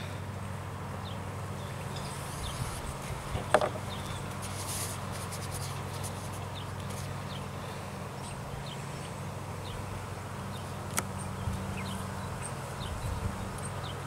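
Quiet outdoor background: a steady low buzzing hum with faint, short high chirps. There is a light knock about three and a half seconds in and a sharp tick near eleven seconds, from hands working a foam sheet being glued down onto a wooden board.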